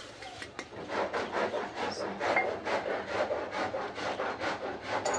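Biscuit dough ingredients being mixed by hand in a bowl: a quick, even rhythmic scraping, about four to five strokes a second, starting about a second in.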